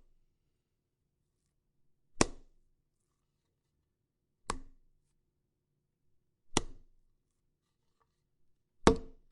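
Foley gore impacts: a prop struck hard four times with a hand tool, about two seconds apart, each a sharp hit with a short dull tail.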